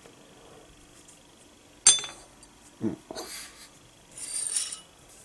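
Steel parts of a small toolmaker's vise being handled on a hard surface: a sharp metal clink with a brief ring about two seconds in, a dull knock about a second later, then a short metal-on-metal scrape with a ring near the end.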